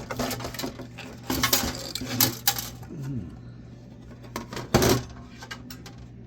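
Small metal parts clinking and clattering, in a few quick clusters with the loudest knock near the end: screws and a small screwdriver knocking against a desktop computer's metal chassis and circuit boards as it is taken apart.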